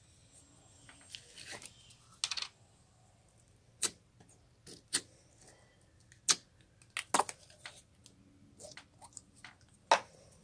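Slime being worked by hand: a sticky crackling in the first couple of seconds, then a series of short, sharp pops and snaps about a second apart.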